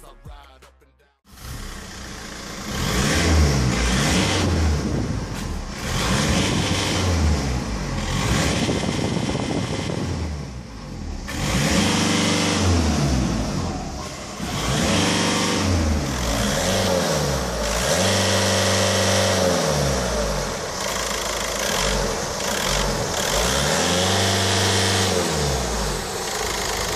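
Volkswagen Golf Plus BlueMotion's 1.9-litre TDI four-cylinder diesel engine being revved while standing still. It is blipped up and back down over and over, with several revs held high for a second or two before falling back toward idle.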